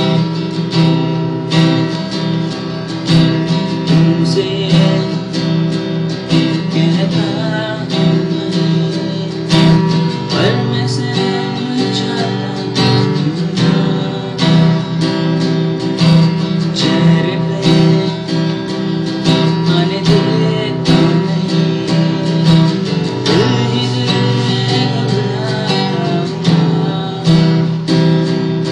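Acoustic guitar strummed steadily, a run of chords with regular strokes.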